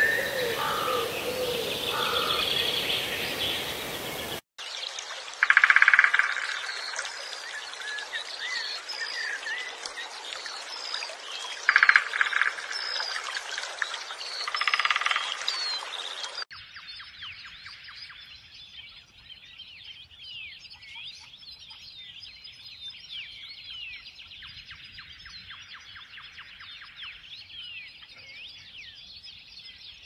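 Wild birds singing and chirping, many quick chirps and trills. A few louder, lower calls come in about a fifth of the way in and again near halfway. The background changes abruptly twice, and the birdsong is thinner and quieter over the second half.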